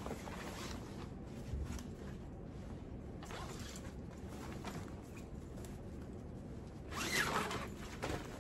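Body bag rustling as it is unfolded and shaken open, in short bursts, loudest about seven seconds in.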